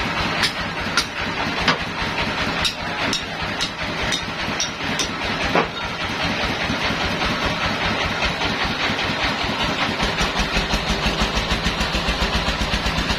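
An engine running steadily, with irregular knocks and clatter over it for the first half. About ten seconds in, a low, even chugging beat comes to the fore.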